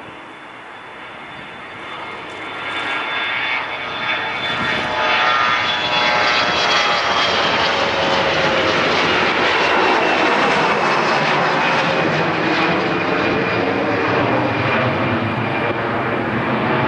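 Bombardier CRJ regional jet's rear-mounted turbofans at takeoff thrust during the takeoff roll, liftoff and climb. The jet noise builds over the first few seconds, then holds loud and steady, with a whine that slowly falls in pitch.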